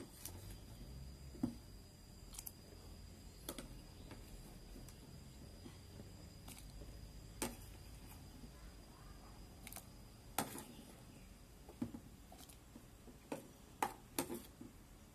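Scattered light clicks and small plops at irregular intervals as mushrooms are dropped into an aluminium pot of water, over a faint low background hum.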